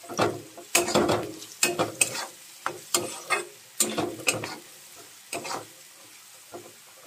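Flat metal spatula scraping and tossing mixed vegetables around a hot metal kadai: about a dozen quick, irregular scrapes over a faint sizzle of frying. The stirring stops a little past five seconds in, leaving only the faint sizzle.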